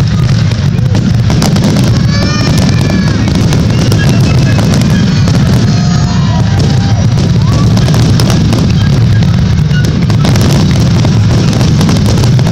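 Aerial fireworks shells going off in a dense, unbroken barrage of bangs and booms, typical of a display's finale.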